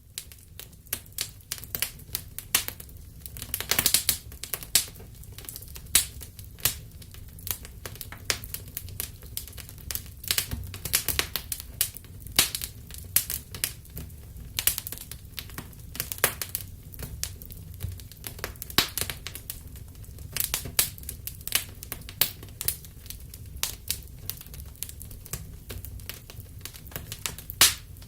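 Wood fire in a fireplace crackling: irregular sharp pops and snaps, some loud, over a steady low rumble of the burning fire.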